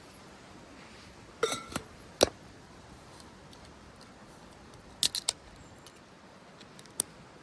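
Metal camp cookware and utensils being handled: a few sharp clinks and clicks, the first cluster ringing briefly, with a quick run of three clicks about five seconds in.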